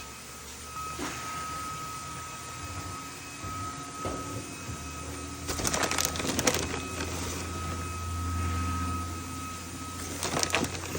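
Kitchen handling sounds over a steady low hum: clattering and rustling as a tray of garlic bread is taken out and topped with cheese, loudest about halfway through and again near the end.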